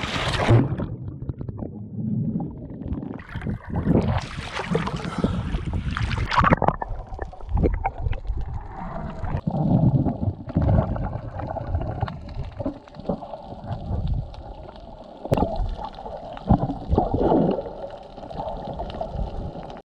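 Water splashing around a GoPro at the surface during the first six seconds or so, then muffled gurgling and swishing water once the camera is underwater.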